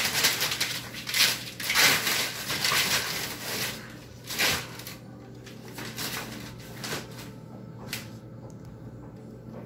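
Newspapers spread on the floor crumpling and rustling under a dog as it scrambles and fights a leash, loud for the first few seconds, then dying down to occasional crinkles as the dog settles.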